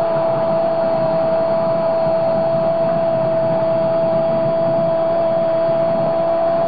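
Television football commentator's long held goal shout, a sustained 'gooool' on one steady pitch, over the dense roar of the stadium crowd.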